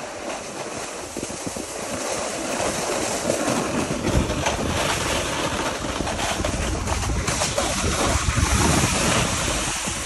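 Snowboard sliding and scraping over packed, tracked snow, mixed with wind rushing over the microphone, growing louder as the ride picks up speed, with heavier low buffeting from about halfway through.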